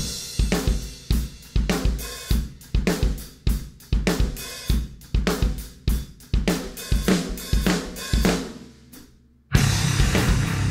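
Rock drum kit playing an intro beat alone: steady kick, snare and hi-hat hits with crash cymbals. The cymbals ring out and fade into a brief lull, then near the end the full band comes in loud.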